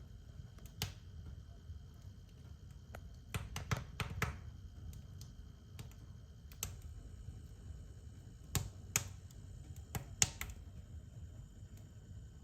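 Fire crackling: irregular sharp pops, bunched about three to four seconds in and again around nine to ten seconds, over a low steady rumble.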